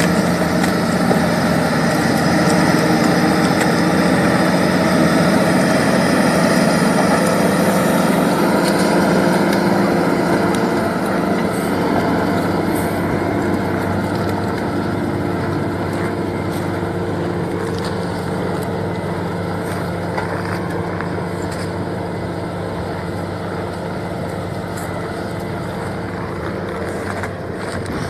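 Diesel engine of a Komatsu earthmoving machine running steadily, getting gradually quieter over the second half.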